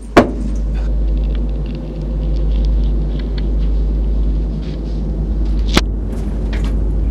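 Low, steady rumbling drone, with a sharp knock just after the start and another a little before six seconds in.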